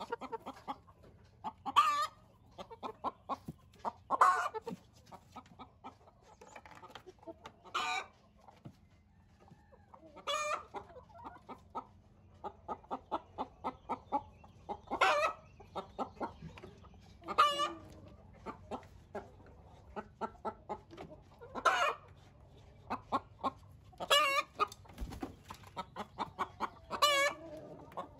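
Chickens clucking: quick runs of short clucks, with a louder, sharper call every two to three seconds.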